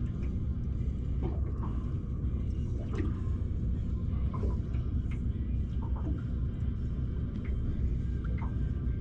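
Water lapping and trickling against a small aluminium boat's hull, with faint scattered drips and ticks over a steady low rumble.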